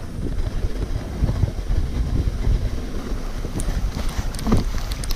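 Sled runners scraping and rumbling over packed snow at speed, with wind noise on the microphone. A few sharp ticks about four seconds in.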